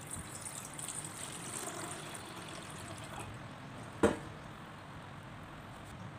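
Water poured from a bowl into a stainless steel saucepan, splashing and filling for about three seconds. About four seconds in, a single sharp knock, the loudest sound.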